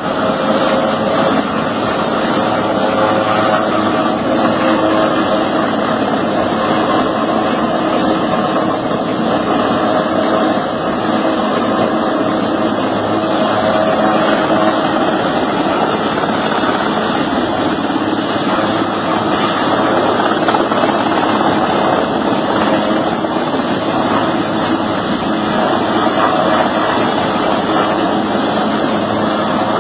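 Helicopter running steadily: loud, unbroken engine and rotor noise with a steady hum underneath.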